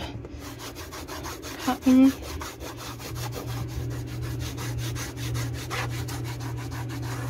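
A cotton ball soaked in Goof Off solvent rubbed quickly back and forth on an RV wall panel to lift old sticker adhesive, making an even run of short scrubbing strokes. Under it runs a low steady hum that grows louder about three seconds in.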